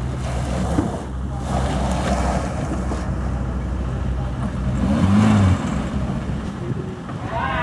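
Engine of a small Suzuki Carry pickup loaded with cassava, running as the truck drives slowly over rough dirt: a steady low hum whose deepest part fades about five seconds in. A brief voice-like call is heard about five seconds in and again near the end.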